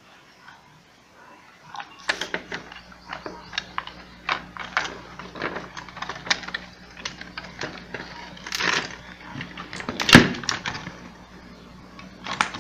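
Irregular clicks and knocks of plastic housing parts being handled and pulled apart while the ironing station's cover is taken off, with one louder knock about ten seconds in. A faint steady hum sets in about two seconds in.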